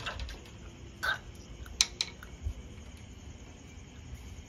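A few small clicks while a freshly caught fish is held and unhooked by hand: a short sound about a second in, then two sharp clicks close together a little later.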